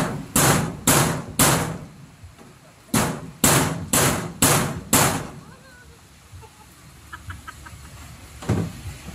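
Repeated sharp knocks, struck about two a second: four, then a short pause, five more, and a single knock near the end.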